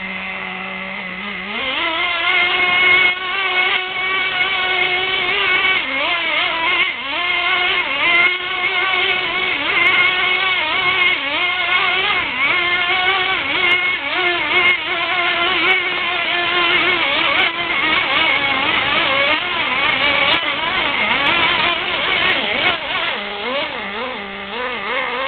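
Nitro-powered RC car's small glow engine running at idle, then revved hard and held at high revs with a wavering pitch while the car does a burnout, wheels spinning in place. It eases back to lower revs near the end.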